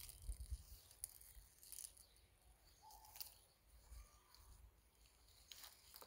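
Near silence: faint scattered clicks and rustles over a low rumble.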